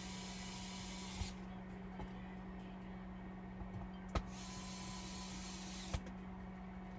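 A small motor whirs in two spurts of a second or two each, with a click as each spurt starts or stops, over a steady low hum.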